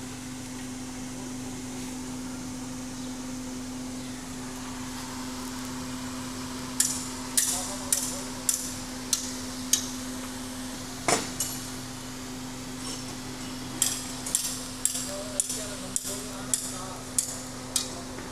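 Repeated hammer blows, struck in two quick runs about half a second apart: six or so, then a single blow, then about eight more. A steady low hum sounds underneath.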